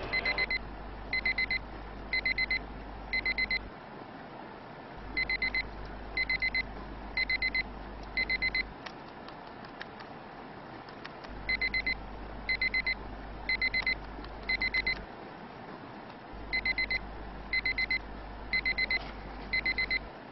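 Electronic alarm beeping in quick bursts of four, about one burst a second, four bursts to a set with short pauses between sets. A low hum comes and goes with each set.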